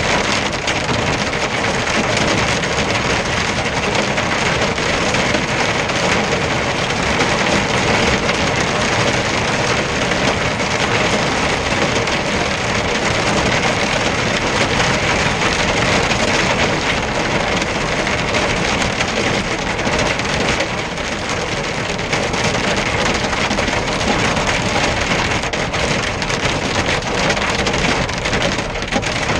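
Hail and rain drumming on a truck cab's roof and windscreen, heard from inside the cab as a dense, steady clatter of small impacts.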